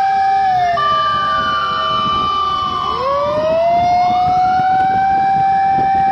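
Fire truck siren wailing over engine and road noise. The pitch falls about half a second in, climbs again about three seconds in and holds high, with a steady higher tone sounding alongside for a couple of seconds near the start.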